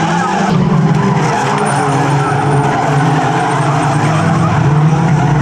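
Several street banger race cars' engines running and revving together, with tyres skidding on the shale oval.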